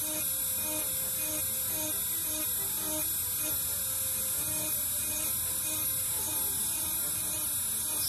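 Micromotor rotary carving tool running steadily, a hum with a high whine, as its abrasive stone bit cuts feather lines into a wooden bird carving.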